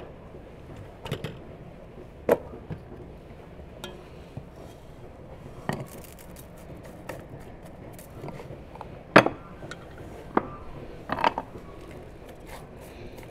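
Scattered clinks and knocks of kitchen utensils against a steel tray and an aluminium pot, the loudest about nine seconds in, over a steady low background hum.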